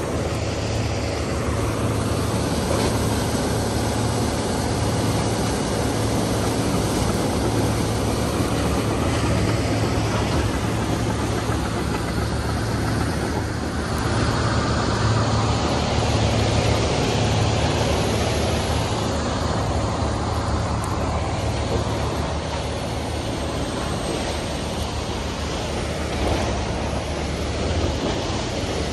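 New Cat D3 crawler dozer with a pin-on rake working through wood mulch, its diesel engine running steadily, a little louder about halfway through as it passes close.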